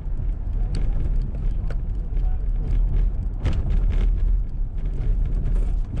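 Road noise heard inside a moving car on wet pavement: a steady low rumble of tyres and engine, with a few light ticks scattered through it.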